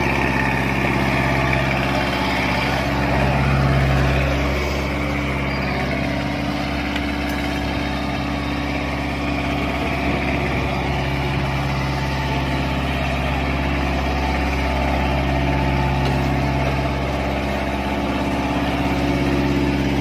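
Road roller's diesel engine running steadily at a constant speed, swelling slightly about four seconds in.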